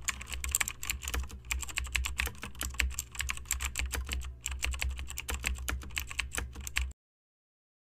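Keyboard typing sound effect: rapid, irregular key clicks over a low hum, with a brief pause partway through, stopping abruptly about seven seconds in.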